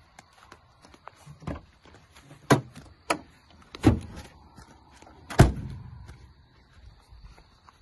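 Several knocks and bumps as a car's rear door is handled and a stuffed toy is pushed onto the back seat, then the car door slams shut about five and a half seconds in, the loudest and deepest thud.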